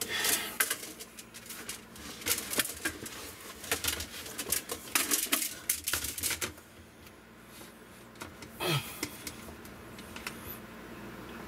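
Rapid clicking, rattling and rustling of plastic as a coil of new PEX tubing is pulled out and handled, for about six seconds, then quieter, with one short low sound near nine seconds.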